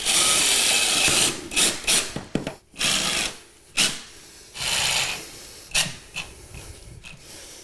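Cordless impact driver driving screws through a toilet flange into the subfloor: one run of about a second, then several shorter bursts that grow fainter.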